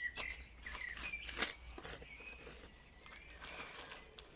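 Soft irregular knocks and rustles of seedlings and soil being moved into small pots, with birds chirping in the background.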